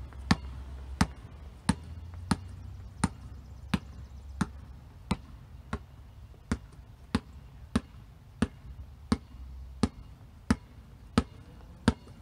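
Basketball dribbled on a concrete driveway at a steady walking pace: evenly spaced bounces, about three every two seconds.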